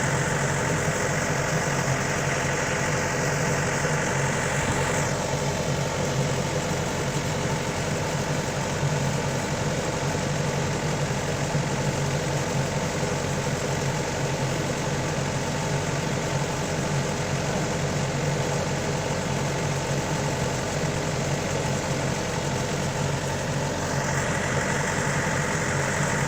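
Diesel engine of a Yanmar AW82 combine harvester running steadily, its hiss thinning a few seconds in and returning near the end.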